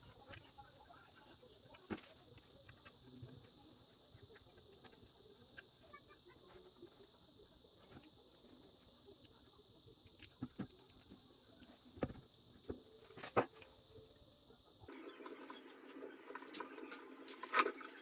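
Faint scratching, rustling and scattered light clicks of hand work on a submersible pump motor's stator winding as the coils are bound, over a steady high hiss. The background changes about 15 seconds in.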